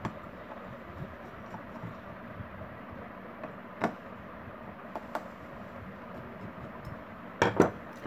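Screwdriver tip clicking and scraping against a table fan's metal end cover while prying out its gunmetal bush bearing. A few sparse light clicks, with a louder pair near the end.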